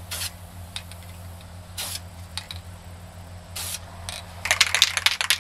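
Three short hisses of an aerosol spray-paint can, about two seconds apart, spraying paint through a bundle of grass laid over the rifle as a stencil. Near the end, a quick burst of rapid rustling clicks.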